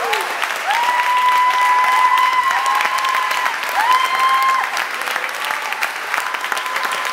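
Audience applauding at the end of a tango performance: a dense patter of many hands clapping. Over the clapping come a few long, high held cheers in the first few seconds.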